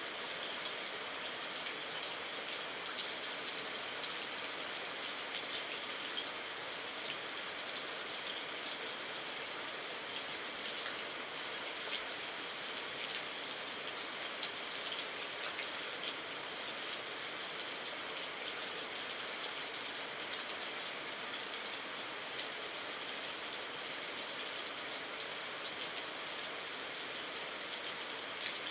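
Steady rain falling: a constant hiss with scattered light ticks of individual drops.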